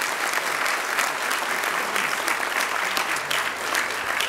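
Audience applause: a large room of people clapping steadily.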